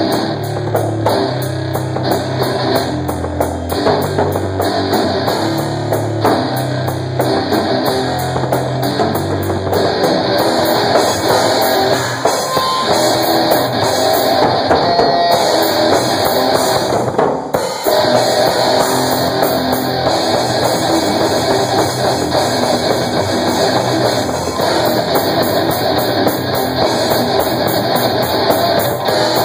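Electric guitar and drum kit playing rock together in a loud, continuous jam, with a momentary break a little past halfway.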